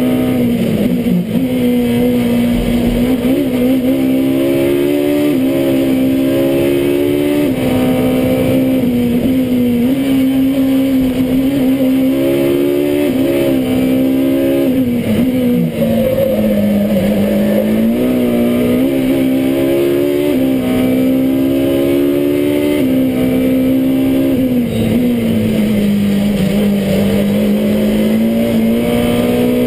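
Ferrari 458 GT3's V8 racing engine heard from inside the cockpit at full race pace. The revs climb through the gears with sharp drops at each quick upshift, and fall away through downshifts at the braking points, several times.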